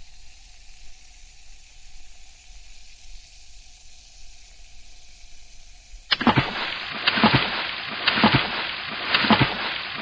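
Water sound effect: a faint steady hiss for about six seconds, then louder splashing and bubbling water with sharp plops.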